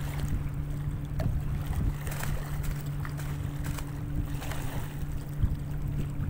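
A boat engine hums steadily at low revs, with wind rumbling on the microphone.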